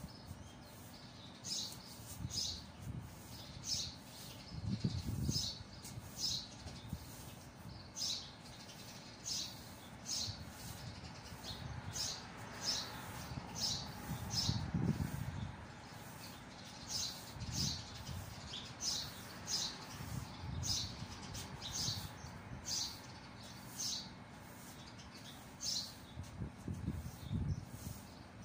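Grass broom sweeping fine sand and dust across a tiled floor: short swishing strokes, about one to two a second in runs with brief pauses, with a faint low rumble now and then.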